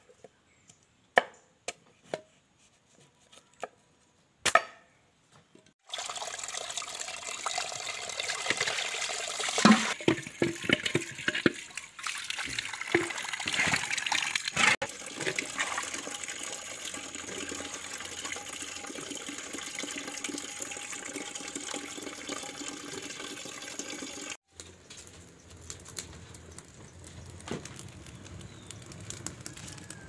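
A few sharp knocks of a large knife chopping peeled manioc on a wooden board. Then continuous splashing and sloshing water with pieces clattering, as hands wash cut manioc in a basin of water. Near the end it gives way to a quieter wood fire crackling.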